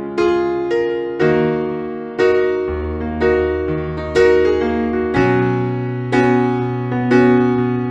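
Background piano music: chords and notes struck about once a second, each fading away, over held bass notes.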